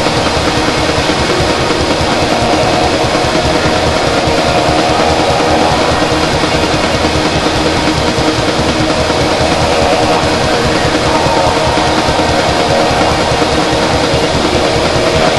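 Loud, steady wall of droning noise music, dense hiss with sustained low and middle tones held beneath it, no beat and no breaks.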